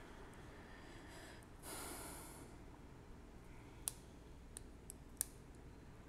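Faint clicks of a steel lock pick working the pins inside a Reese padlock under tension, a few sharp ticks in the second half. A short breath is exhaled near the microphone about two seconds in.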